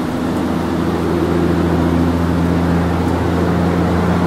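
Car engine and road noise: a steady low hum, getting slowly louder.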